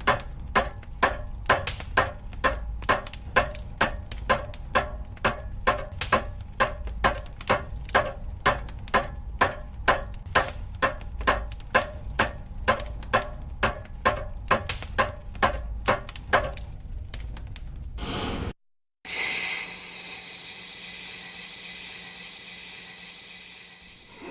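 Blacksmith's hammer striking an anvil in a steady rhythm, a little over two blows a second, each blow ringing. After a brief break comes a long hiss of steam that slowly fades.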